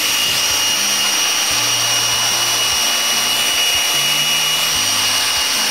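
Makita 18V cordless drill running steadily with a high whine, spinning an engine valve chucked by its stem while a strip of 80-grit sanding paper rubs against it, sanding off carbon deposits.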